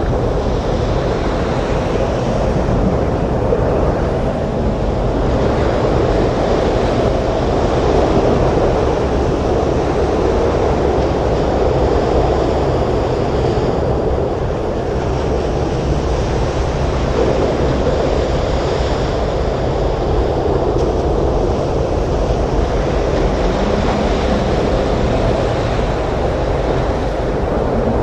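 Storm wind and breaking surf: a dense, continuous rush of wind and waves that swells and eases gently, with no single distinct crash standing out.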